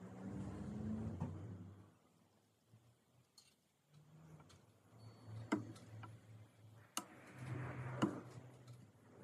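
Faint handling sounds of a wooden cabinet door and its hinge: a few sharp clicks and light knocks, with brief rustling swells.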